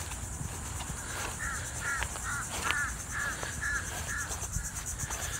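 A bird calling again and again with short, arched chirps, often in pairs, over a steady high buzz of insects.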